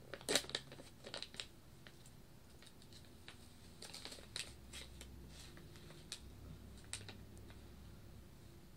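A blind-bag wrapper being handled and torn open: faint crinkling with scattered sharp clicks, busiest in the first second or so and again around the middle.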